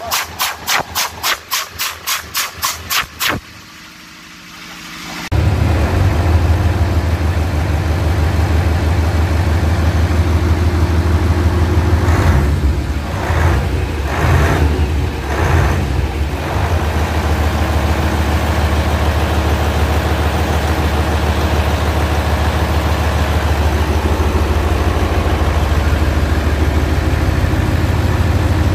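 Mitsubishi Fuso 8DC11 V8 diesel engine turning over on the starter at about four compression pulses a second. It goes briefly quieter, then fires about five seconds in and runs steadily, its note wavering a few times midway. The engine is on test for a leaking head gasket that pushes compression into the coolant.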